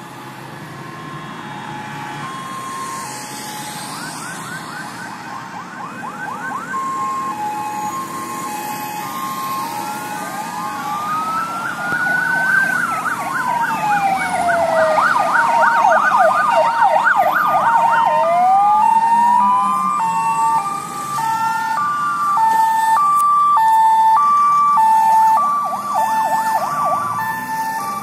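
Several fire engine sirens on an emergency run, growing louder as the trucks approach. A two-tone hi-lo siren alternates throughout, with slow rising-and-falling wails and bursts of fast yelping sweeps layered over it.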